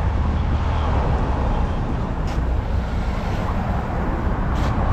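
Steady street traffic noise with a heavy low rumble, heard from a moving bike, and two brief clicks about two and four and a half seconds in.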